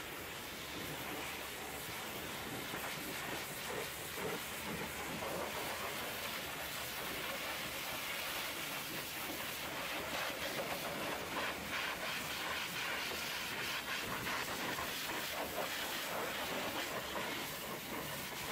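Hot-water pressure washer lance spraying a steady jet of water against a semi truck's cab and front steps, the spray spattering off the panels.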